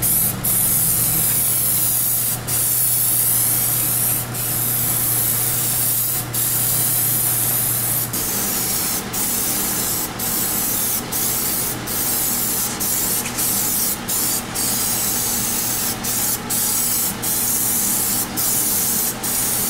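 Aerosol can of PlastiDip liquid rubber hissing as it is sprayed, in long passes at first and then in shorter, quicker bursts with brief pauses between them.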